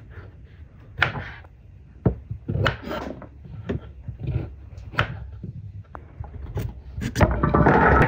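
Kitchen knife chopping carrots on a wooden cutting board, in separate uneven chops. Near the end, the cut carrot pieces are slid off the board and rattle into a large metal pan.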